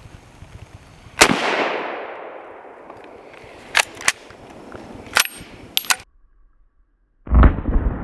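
A single shot from a 7mm Mauser bolt-action rifle about a second in, a sharp crack followed by a long echo that fades over a couple of seconds. Several sharp metallic clicks follow as the bolt is worked. Near the end, after a short silence, a sudden low thump.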